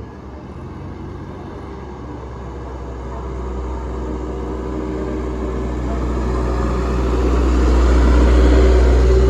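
A bus approaching: deep engine rumble and road noise growing steadily louder, loudest near the end.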